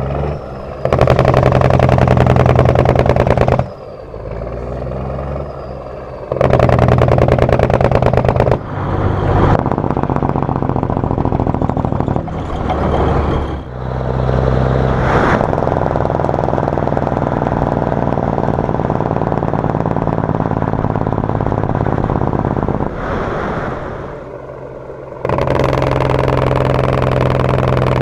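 A 1952 Kenworth's 855 cu in Cummins diesel with a Jacobs engine brake, heard through dual 7-inch stacks. The engine switches several times between loud stretches of hard, rapid exhaust pulses and quieter dips, as the jake brake engages and releases, with a long steadier stretch in the middle.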